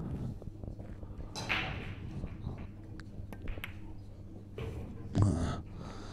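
Pool shot: the cue tip strikes the cue ball and the cue ball clicks into the object ball, one sharp knock about five seconds in. A few faint clicks come just before it.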